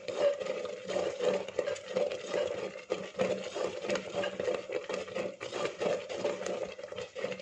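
Metal spoon stirring thick, thickening kalan (yogurt curry) in an earthenware pot, with many small clicks and scrapes of the spoon against the pot and the curry. A steady hum runs underneath.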